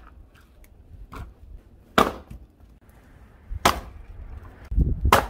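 Firewood being chopped: four sharp strikes, spaced about a second to a second and a half apart, the first one lighter.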